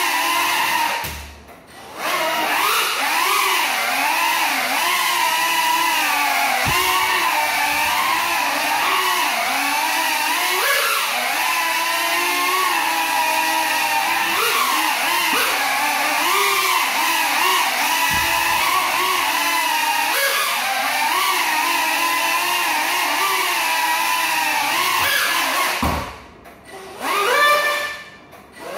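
Small FPV quadcopter's electric motors whining, spinning broken propellers, the pitch wavering up and down with the throttle while the drone stays on the floor. The whine cuts out briefly about a second and a half in, and again near the end, where it spins back up in a quick rising whine.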